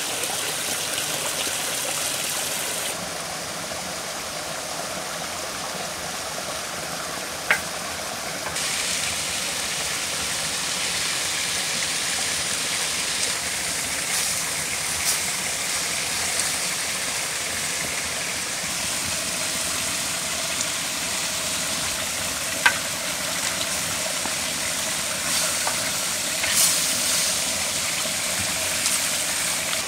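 Chicken pieces frying in a pan over a wood fire: a steady sizzle, broken by two sharp clicks and a few fainter ones.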